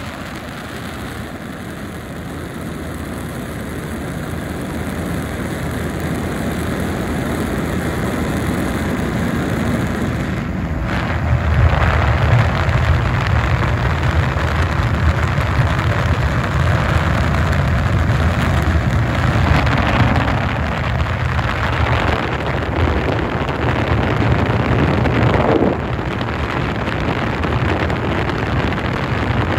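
Hot-air balloon's propane burner firing in one long blast: a loud rushing roar with a deep rumble that starts about eleven seconds in and cuts off sharply near the end, after a softer rushing sound builds up.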